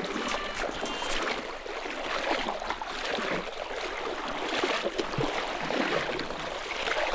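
River water rushing and splashing, an uneven wash of noise that swells and dips, with a few sharp clicks in the first second.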